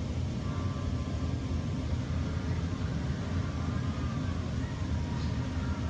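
Central HVAC system running behind a wall return-air grille, with the compressor and blower making a steady low drone and a rush of air.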